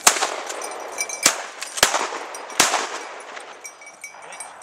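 Four shotgun shots from two hunters, unevenly spaced over about two and a half seconds.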